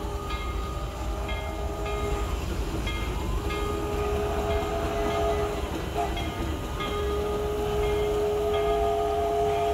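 Ohio steam locomotive crane working, its machinery running over a low rumble with light regular clicks about twice a second. A steady mechanical whine with overtones sets in about a third of the way in, drops out briefly, and returns.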